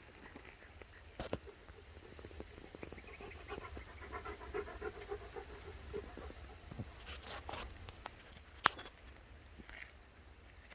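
Quiet rhythmic panting for a few seconds over a low steady hum, with a single sharp click near the end.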